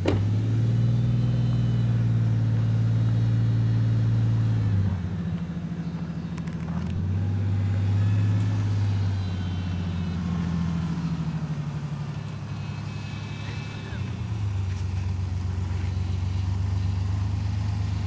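Lifted Toyota 4Runner's engine pulling under load at low speed as the truck crawls over large barrel obstacles. The throttle is held in long pushes of a few seconds, easing off about five seconds in and again after about twelve seconds, then coming back on strongly.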